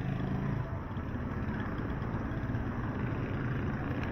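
Motorcycle tricycle's engine running as it passes and pulls away: a steady low hum, loudest at the start.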